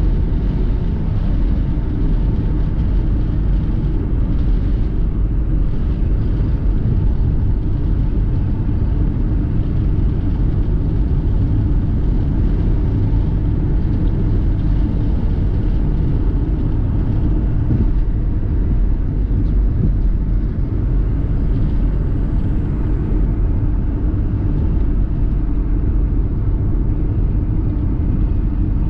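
Steady low rumble of a car driving along: engine and road noise that holds even throughout.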